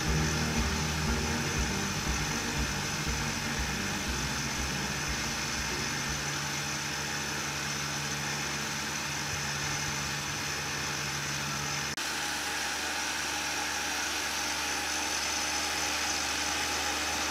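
Restored electric centrifugal water pump running dry, its motor giving a steady hum with a high whine as the impeller blows air out of the outlet.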